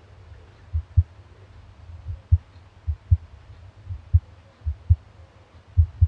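A border collie's heartbeat picked up by an iPhone microphone pressed against its chest: low lub-dub double beats, about one pair a second, slightly uneven in spacing.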